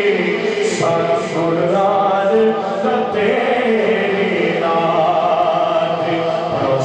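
A man singing a naat, an Urdu devotional song, into a handheld microphone through a sound system, in long held notes that waver and glide in pitch.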